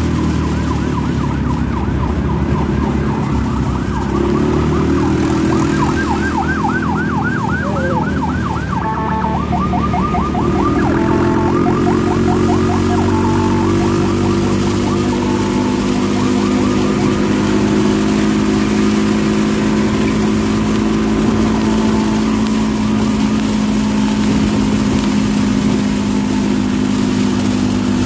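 Electronic emergency siren sounding a fast warble, changing pattern a few times, and dying away about halfway through. It leaves the steady drone of a motor scooter engine at cruising speed.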